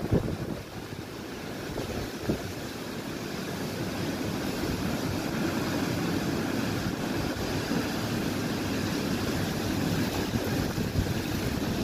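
Tropical storm wind and heavy rain making a steady rushing noise that grows louder over the first few seconds, with a few gusts thumping on the microphone near the start.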